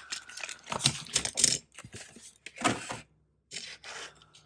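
Hot Wheels blister packaging being opened by hand: irregular bursts of plastic crinkling and sharp clicks as the blister and card are worked apart, with a short pause about three seconds in.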